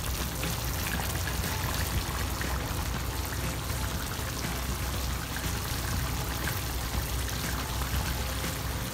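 Chicken curry gravy simmering in an aluminium kadai, a steady bubbling hiss.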